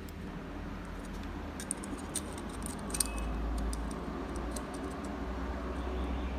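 Small metallic clicks and taps as two stainless steel pieces are handled and positioned in pliers, a cluster of them between about one and a half and three seconds in, the sharpest about three seconds in, over a steady low hum.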